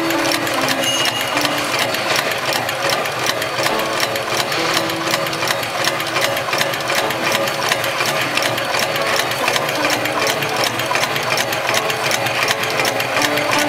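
Extra-heavy-duty computerized rope bar tacking machine (HighTex 71008R) stitching through a doubled climbing rope to form a sewn eye: a fast, even needle rhythm that keeps going, with short hums that step up and down in pitch.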